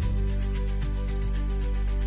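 Background music with sustained chords over a steady pulse, the bass note changing at the start of the phrase.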